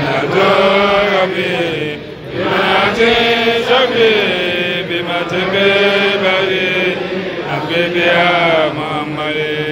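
A man chanting a prayer into a microphone in a drawn-out, melodic voice, with an "Amen" about halfway through.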